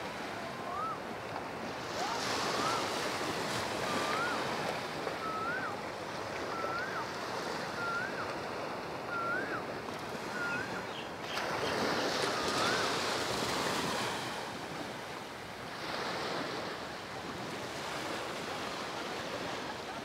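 Surf washing onto a sandy beach, swelling louder now and then. A bird repeats a short rising whistled note about once a second through the first half, then once more a little later.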